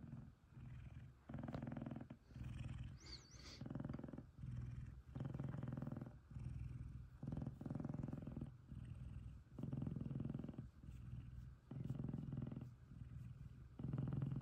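F2 Savannah cat purring loudly, the purr swelling and fading about once a second with each breath in and out.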